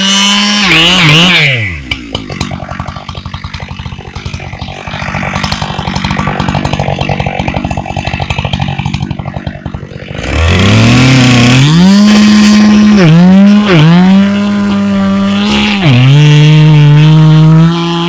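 Husqvarna 592 XP two-stroke chainsaw: it drops from full revs to a low idle for about eight seconds. It is then throttled back up to full speed and cuts into the base of a large fir trunk, the pitch dipping briefly three times.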